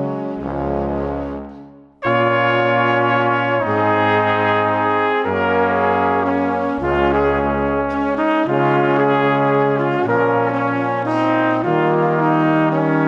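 Slow instrumental background music of long held chords. One piece fades out and the next begins abruptly about two seconds in.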